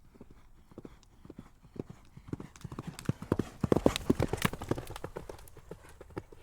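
Horse hooves clip-clopping in a quick, even run of knocks, growing louder to a peak about four seconds in and then fading away.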